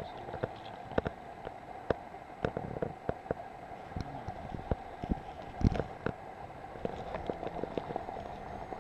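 Scattered sharp clicks and knocks of wading and handling in shallow water and dry reeds while a trout is released, with one louder thump a little after halfway.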